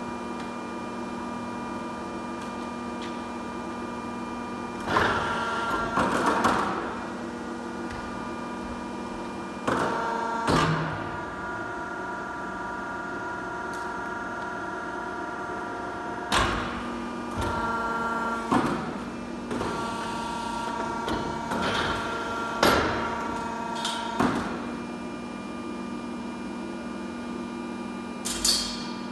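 Pipe-bending machine running: a steady hum of several tones, broken by repeated short, louder bursts of clanking and rushing noise as it bends a steel pipe. The hum changes pitch after some of the bursts.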